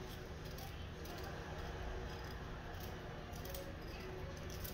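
A red onion being cut with a kitchen knife and pulled apart by hand: scattered small crisp clicks and snaps, irregular, several seconds apart or closer, over a faint steady room hum.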